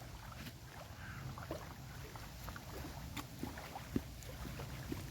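Wind buffeting the microphone as a steady low rumble, with scattered small clicks and taps and one sharper click about four seconds in.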